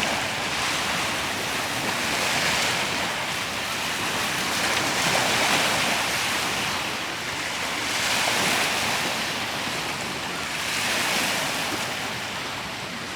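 Ocean waves washing onto a beach, the surf swelling and easing about every three seconds.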